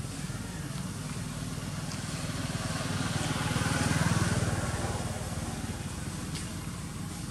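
Engine of a passing motor vehicle: a steady low hum that grows louder to a peak about halfway through, then fades.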